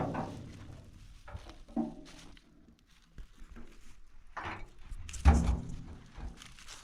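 A few irregular thuds and knocks, the loudest about five seconds in.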